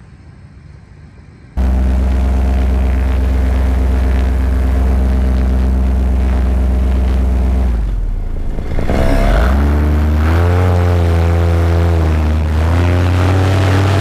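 Paramotor engine and propeller running steadily, cutting in abruptly about a second and a half in. Around the middle the engine pitch drops sharply and then climbs back up, settling at a couple of slightly different steady pitches.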